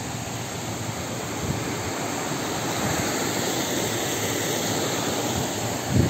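Water rushing along a narrow stream channel: a steady hiss of running water that grows a little louder as the camera nears it.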